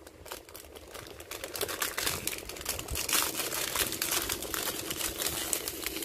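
A metallic foil blind-bag wrapper crinkling and crackling as hands tear it open. The crackle is sparse at first and gets denser and louder from about two seconds in.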